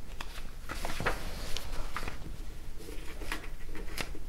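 Papers and a pen being handled on a desk: scattered soft rustles and light taps.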